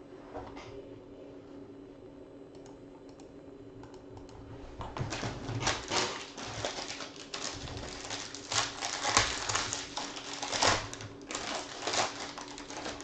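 Foil trading-card pack crinkling and being torn open by hand, a dense run of crackles starting about five seconds in. Before that, only a faint steady hum.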